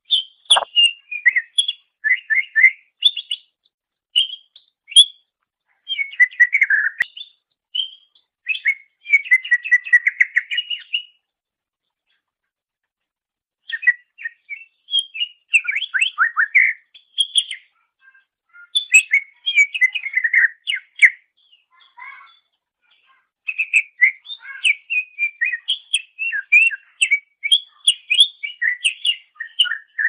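Greater green leafbird (cucak ijo) singing: rapid runs of varied high chirps and trills in phrases of a few seconds, broken by short pauses and a longer gap near the middle.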